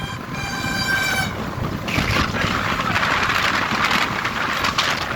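Wind buffeting the microphone and road and engine rumble from a motorbike riding on a highway. A vehicle horn sounds one steady note for about a second near the start.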